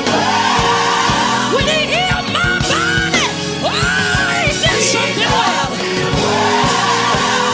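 A song with a solo voice singing over band accompaniment, held chords and a regular beat. The voice slides up and down in pitch through drawn-out notes.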